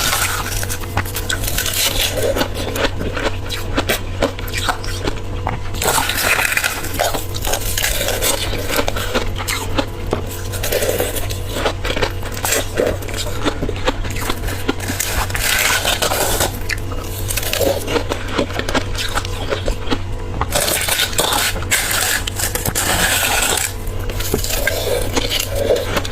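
A person biting and chewing frozen freezer frost and refrozen ice: steady crackling and crunching, with several louder crunching bites spread through.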